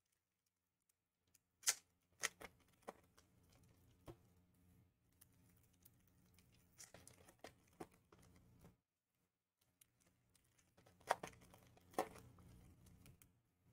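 Trading card pack wrappers being torn open and crinkled: sharp crackles in two clusters, one about two seconds in and another around eleven seconds, with soft rustling between.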